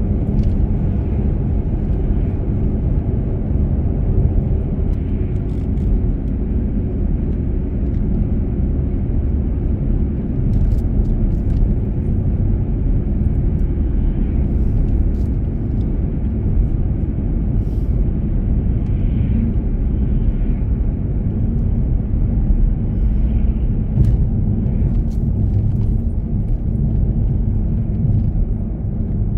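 Steady low road rumble of a car driving at speed on a paved road: tyre and engine noise.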